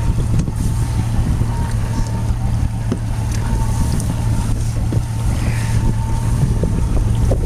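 Boat engine running steadily at idle, a constant low hum, with wind buffeting the microphone.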